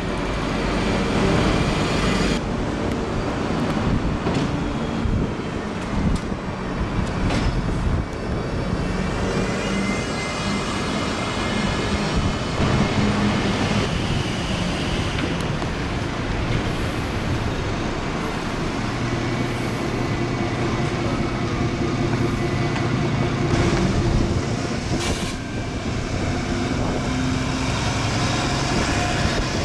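Double-decker buses passing close by in street traffic, their engines running as they pull away, over a steady road-traffic hum.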